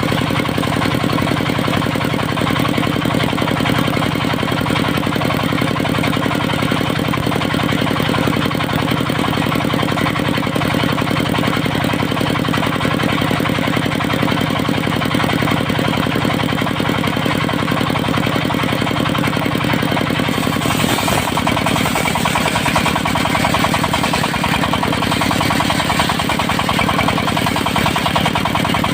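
Engine of a portable circular sawmill running steadily. About twenty seconds in the sound changes, with more high hiss coming in.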